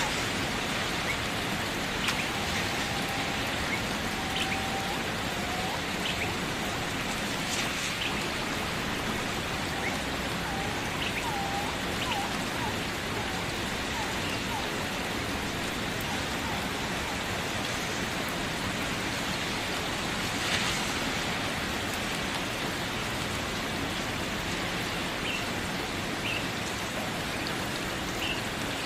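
Steady rain falling, an even hiss of drops, with short faint chirps now and then over it.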